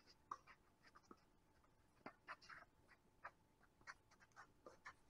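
Near silence: faint outdoor court ambience with a few soft, irregular ticks and chirps.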